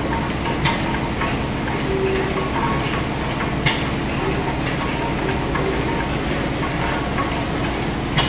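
Stationary steam engines running: a steady mechanical clatter with scattered clicks and knocks, the sharpest a little over three and a half seconds in.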